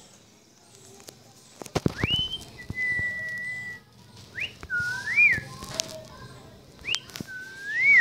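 Cockatiel whistling: a rising swoop into a long held note, then a few shorter notes that rise and fall. A few sharp clicks come just before the first note.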